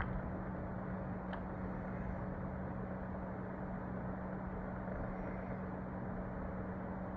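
Steady background hum with a constant hiss underneath, and two faint clicks near the start, about a second and a half apart.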